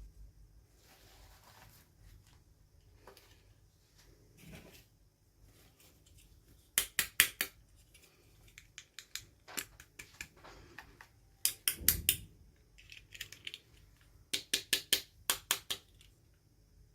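Quick runs of sharp clicks and taps from small hard objects being handled, in three bunches with quieter rustling between them.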